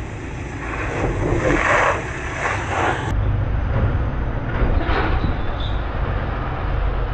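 Heavy truck's diesel engine running under load as it pulls up a steep hairpin bend, with a steady low rumble. The sound changes abruptly about three seconds in.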